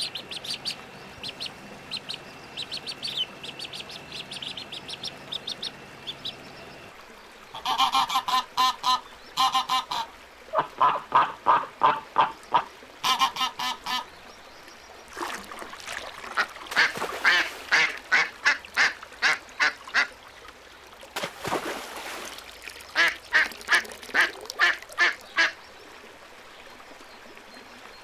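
Ducks quacking in rapid runs of calls, several bouts of about four or five calls a second, loud and nasal. Before them, for the first several seconds, there are only fainter high chirps.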